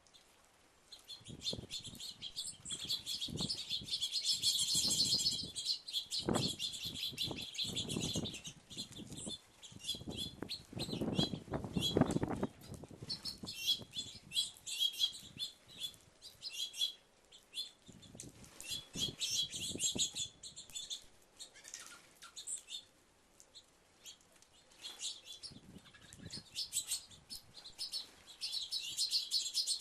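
A flock of small birds at a porch feeder chirping in busy, overlapping bursts, with the whir of wings as birds fly in and out, mostly in the first half.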